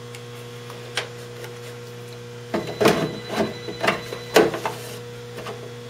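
Handling noise of a small submersible pump and its power cord being set in place in a hydroponic reservoir: a single click about a second in, then a run of clicks and knocks for about two seconds from midway. A steady low hum sits underneath.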